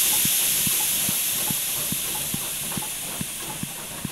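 A loud rush of steam hiss that starts suddenly and fades slowly, over a steady low thump repeating about two and a half times a second.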